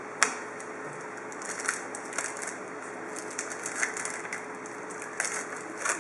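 Foil wrapper of a football trading-card pack crinkling as it is torn open by hand, with a sharp snap about a quarter second in, then repeated crackling rustles.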